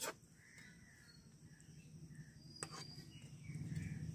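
Quiet outdoor background with faint, scattered high chirps. A metal spatula clinks against the kadai at the very start, and there is one sharp click about two and a half seconds in.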